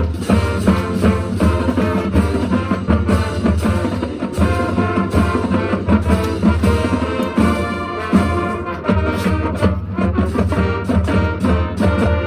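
High school marching band playing: brass and saxophones sounding sustained chords over a steady drum beat.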